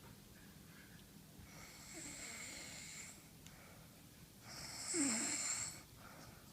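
A sleeping woman snoring: two snoring breaths, one about a second and a half in and a louder one near the end.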